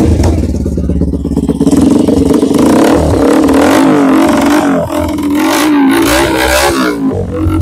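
TVS Apache RTR 160 4V's single-cylinder engine running loud through an aftermarket chrome slip-on silencer fitted to a stainless steel bend pipe, with the stock exhaust removed. It idles, then is revved up and down several times from about three seconds in.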